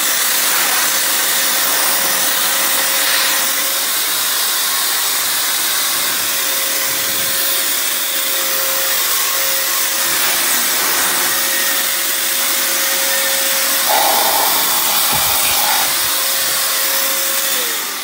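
A Euro Fine EF6239 1000-watt handheld vacuum cleaner running in blower mode, a steady rush of air with a steady motor whine, blowing dust out of its filter. Near the end it is switched off and the whine drops away as the motor winds down.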